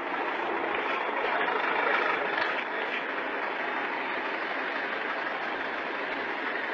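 Heavy machinery engine running steadily, heard as an even, noisy drone that swells a little about two seconds in.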